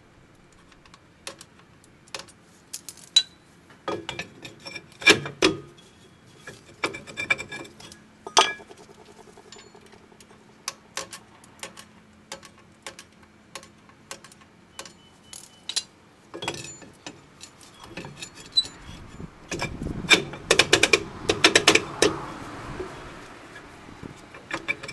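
Sharp metallic clicks and clinks of a rear drum brake's springs and shoes being worked by hand. Near the end comes a denser, louder clatter and scraping as the steel brake drum is slid over the shoes onto the hub.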